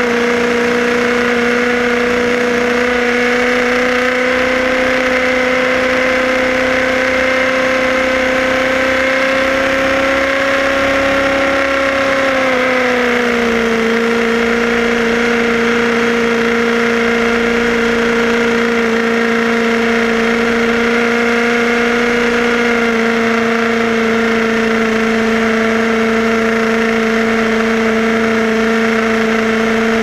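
HPI Baja 5B SS RC car's two-stroke gasoline engine running at a steady, high-revving cruise. Its pitch creeps up slightly, then dips a little about 13 seconds in and holds steady.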